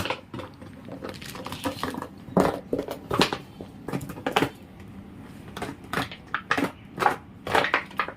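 A small dog chewing and mouthing a plastic water bottle: irregular crackling crunches and knocks of the plastic, several a second with brief pauses.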